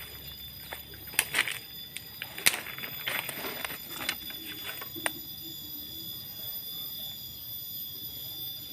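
Footsteps crackling on dry leaf litter and twigs for the first five seconds or so, with the sharpest snaps about one and two and a half seconds in. A steady high-pitched ringing of several tones runs throughout.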